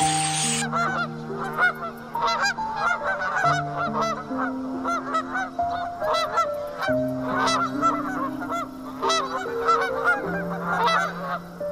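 A flock of waterfowl honking: many short, overlapping calls in quick succession, over soft background music with slow held notes.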